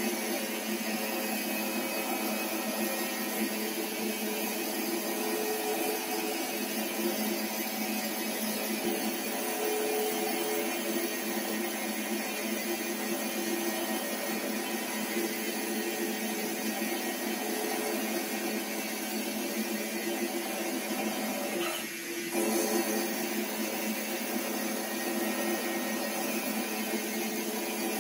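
Metal lathe running steadily while its cutting tool turns down a spinning metal bar, throwing off chips: a steady machine whine with several fixed tones. It dips briefly about three-quarters of the way through, then runs on as before.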